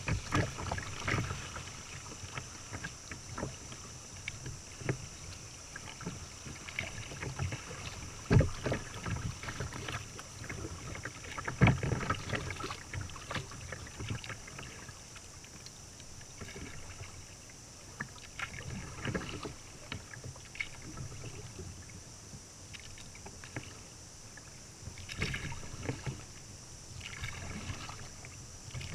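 Kayak gliding on a river: water lapping and splashing against the hull, with irregular paddle splashes, the two loudest about eight and twelve seconds in.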